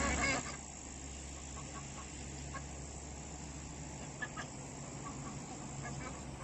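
Domestic fowl giving a few short, scattered calls, faint over a low steady background.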